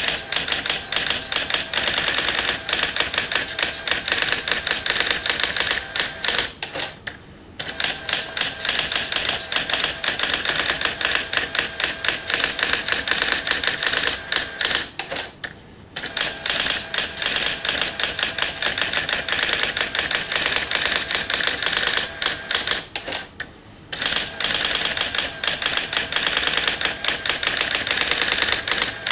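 Brother AX-20 electronic daisy-wheel typewriter printing a long stream of characters: rapid strikes in quick succession, broken by short pauses about every eight seconds.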